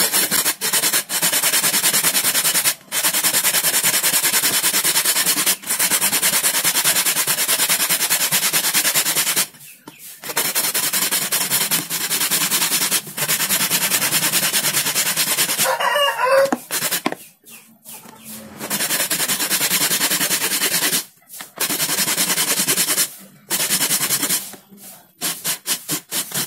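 Fresh coconut being grated on a stainless steel box grater: a steady run of rasping strokes, broken by a few short pauses. About two-thirds of the way through, a chicken calls once, briefly.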